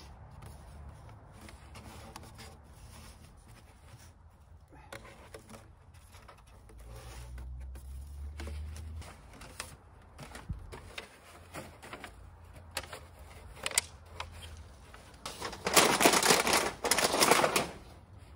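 Metal stovepipe for a camping wood stove being handled and fitted together: scattered light clinks and knocks, then two loud stretches of metal scraping and rattling near the end.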